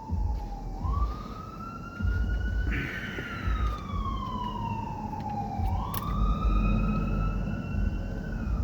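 An emergency vehicle's siren wailing, its pitch slowly rising and falling about every three seconds. There is a sharp click about six seconds in.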